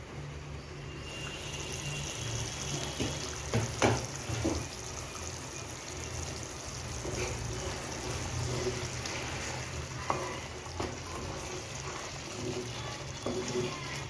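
Egg curry gravy boiling in a kadai: a steady bubbling hiss, with a few short pops or clicks scattered through it.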